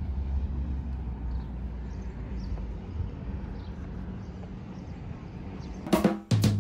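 Outdoor town ambience: a steady low rumble with faint short high chirps scattered through it. Near the end it is cut off by a few sharp sounds as music begins.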